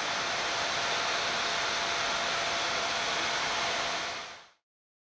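Steady rushing hiss of air and machinery noise on a Boeing 787-9 flight deck in flight, with a faint steady tone under it. It fades out quickly to silence about four and a half seconds in.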